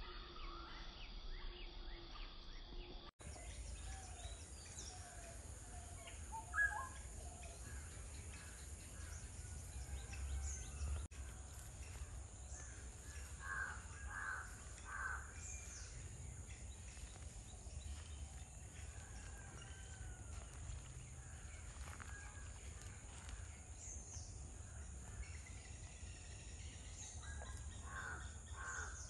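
Outdoor ambience of birds calling, with a cluster of harsh, crow-like caws about 13 seconds in and again near the end, over a low rumble and a steady high hiss. The background changes abruptly about three seconds in.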